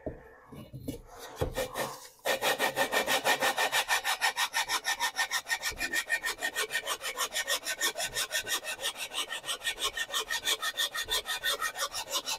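Gritty metal-on-metal scraping of a 96 mm cylinder jug being twisted back and forth against the cylinder head of a 1976 Porsche 912E Type 4 engine with grinding compound between them, lapping the two sealing surfaces together. A few slower scrapes come first, then from about two seconds in it settles into a steady rhythm of about five or six strokes a second.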